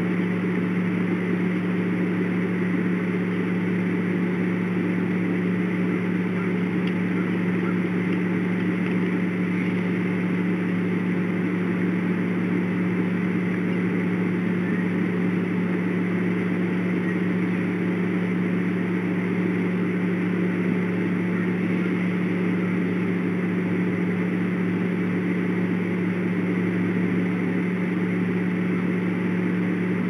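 A steady low mechanical hum at one constant pitch, unchanging in level.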